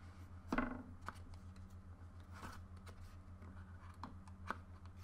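Light handling noise of a smartphone being worked out of its snug cardboard box tray: a few soft scrapes and taps of card, the strongest about half a second in, over a steady low hum.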